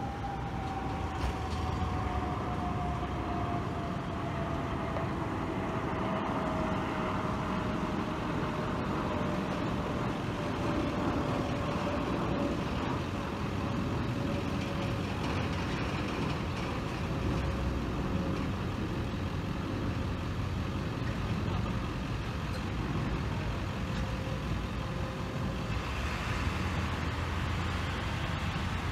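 Street traffic: vehicle engines idling and passing in a steady rumble. Over it, a distant siren tone slowly winds down in pitch and fades out over about twenty-five seconds.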